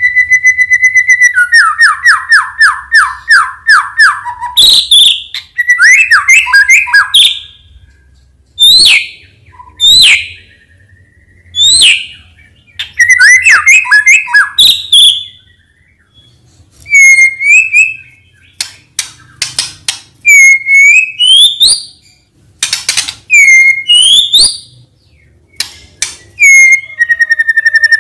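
White-rumped shama (murai batu) singing loud, varied whistled phrases with short pauses between them. The song opens with a held whistle that breaks into a fast run of falling notes, then moves to sharp upswept notes and curling whistles.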